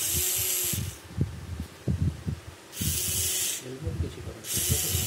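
Hobby servo motors in a 3D-printed prosthetic hand whirring in three short bursts as the fingers move in response to the wearer's forearm muscle signals, with soft low knocks in between.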